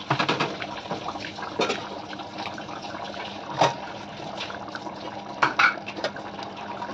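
Thick tomato chutney bubbling and spluttering in an open aluminium pressure cooker as it reduces, most of its water cooked off, with a steady simmering hiss and a few loud bubble pops. A wooden spoon knocks and scrapes in the pot at the very start.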